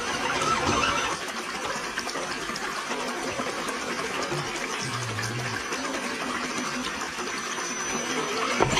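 Water sloshing and trickling in a shallow creek as a 1/10-scale RC crawler truck wades through it; the sound swells near the end.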